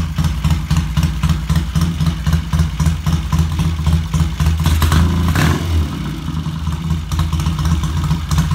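Vintage Triumph parallel-twin motorcycle engine idling steadily with an even exhaust beat, running smoothly on its freshly rebuilt top end.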